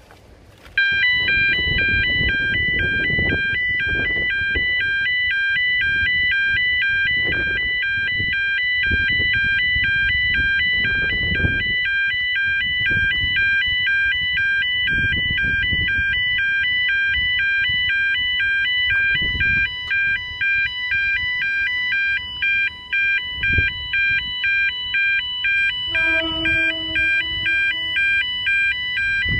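E2S electronic alarm at a request footpath level crossing starting abruptly about a second in and sounding a continuous two-tone warble. It signals that the crossing button has been pressed and the user must wait for the signaller to unlock the gates. Wind buffets the microphone throughout.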